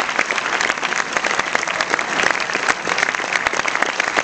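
Audience applauding, steady and dense clapping from a large crowd.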